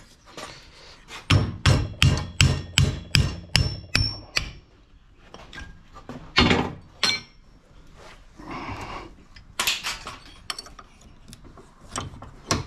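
Hand hammer striking metal: a quick run of about ten blows, roughly three a second, some with a short high metallic ring, then a few scattered single knocks. The blows are knocking extruded aluminium heat sinks free of flat-screen TV circuit boards.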